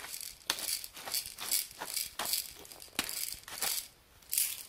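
Hand pepper mill grinding whole black peppercorns, a dry rasping crunch with each twist, repeating about three times a second.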